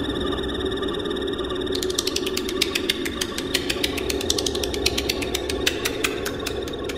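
Electronic dance soundtrack: a steady low drone with rapid, irregular clicks and ticks over it, the clicks growing denser and sharper about two seconds in.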